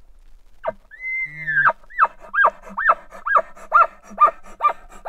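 An elk bugle: a high whistle slides up about a second in, is held briefly over a low growl and breaks downward, followed by a run of about eight chuckles, roughly two a second, each with a low grunt beneath it.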